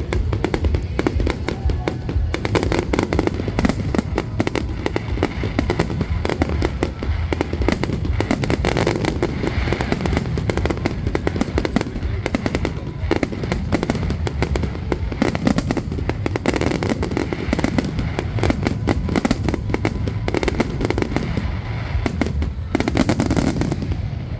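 Fireworks display in a dense, continuous barrage of bangs and crackles, one after another with no pause.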